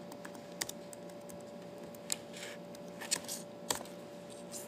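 Typing on an HP laptop keyboard: scattered key clicks, a few at a time with short pauses, over a faint steady hum.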